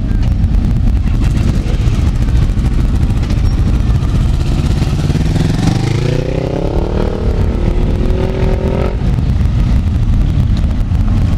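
Many motorcycle engines running together in a steady rumble, with one motorcycle revving up and pulling away about six seconds in, its engine note rising, then holding, then ending about nine seconds in.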